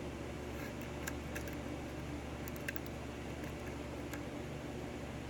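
A few faint, light metallic clicks of a lock pick and tension tool working the pins of a Dorma 6-pin pin-tumbler lock, spread irregularly over a steady low room hum.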